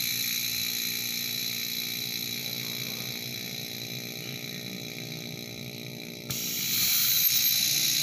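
Hermetic refrigerator compressor, rigged as a vacuum pump, running with a steady hum and a hiss of air. About six seconds in, a louder rush of air hiss cuts in suddenly.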